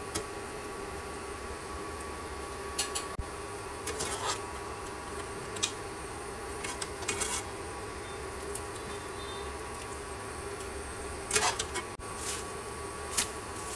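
Water bubbling at the boil in a pan over a steady hum, with several short clinks and scrapes of chopsticks and a wire skimmer against the pan as blanched leafy greens are lifted out, the busiest clatter a little past the middle.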